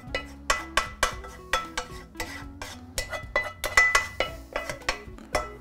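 A wooden spoon knocks and scrapes against a frying pan as fried vegetables are pushed off it into a soup pot. It is an irregular run of sharp taps, about three a second, some of them with a brief metallic ring.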